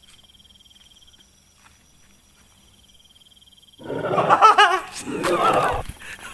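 Crickets chirping faintly, then a little under four seconds in a loud, wavering, voice-like call of two parts lasting about two seconds: the strange sound from the darkness.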